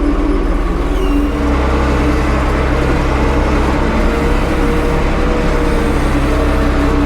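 Tractor engine running steadily with a low rumble and no change in pace.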